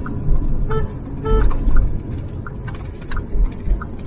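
Car driving slowly round a roundabout, heard from inside the cabin: a steady low engine and road rumble with a few heavier swells. Short high pips repeat about one and a half times a second.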